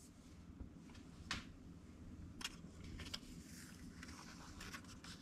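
Very quiet room tone with a low hum and a few faint clicks.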